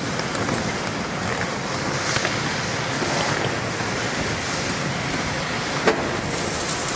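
Heavy tracked demolition excavators running: a steady diesel engine and hydraulic noise, with scattered clanks and knocks of scrap iron and rubble in the grabs. The loudest is one sharp clank near the end.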